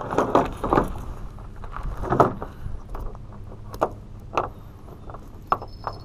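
Hands rummaging in a backpack on a plastic pickup tailgate. There are rustling and scuffing sounds in the first couple of seconds, then several sharp, light clicks of clips or keys.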